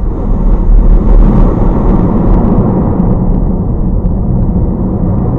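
A ship's explosion and fire heard through a dashcam's microphone inside a car: a loud, continuous low rumble with no single sharp bang, a little louder about a second in.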